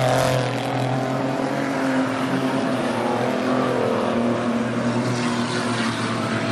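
Stockcar engines running at low revs as the cars circulate, a steady drone.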